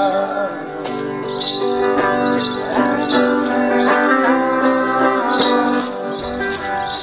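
One-man band instrumental: electric guitar playing over a steady percussion beat.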